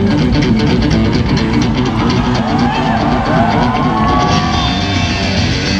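Live rock music with electric guitar, drums and electronic backing through a festival PA, heard from the audience. A sliding, bending melody line comes in about two seconds in.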